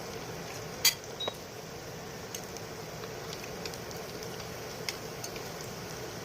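Cheese sticks in lumpia wrappers frying in hot oil: a steady sizzle with scattered small pops, and one sharp click about a second in.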